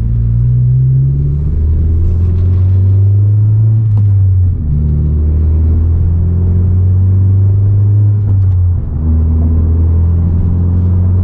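Honda Civic Si's turbocharged 1.5-litre four-cylinder, breathing through an aftermarket cat-back exhaust and catted downpipe, heard from inside the cabin while pulling gently at low revs. A steady low drone climbs slowly in pitch and drops back twice, about four and a half and eight and a half seconds in, as the gears are shifted up.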